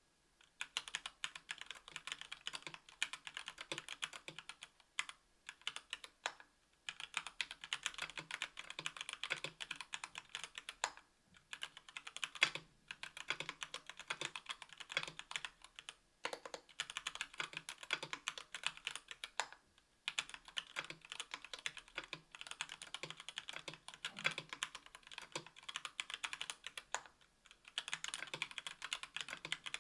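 Fast typing on a 60% mechanical keyboard with stock Gateron Red Ink linear switches (45 g), GMK keycaps and an aluminium plate and case: a dense stream of key clacks in runs of a few seconds, broken by short pauses. The typing starts about half a second in.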